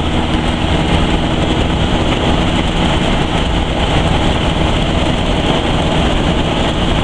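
Buggy on the move: a steady engine drone mixed with loud wind and road noise.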